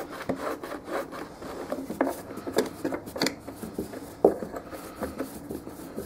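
Air cleaner cover on a Generac engine being worked back into place by hand: irregular rubbing and scraping with many small clicks, and one sharper knock about four seconds in.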